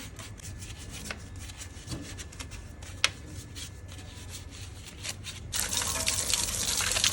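Water hose spraying onto a car wheel, starting suddenly about two-thirds of the way in as a steady hiss. Before it there are only scattered faint ticks and drips.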